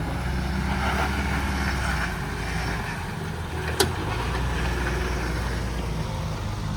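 A four-wheel-drive vehicle's engine running steadily, with one sharp click or knock nearly four seconds in.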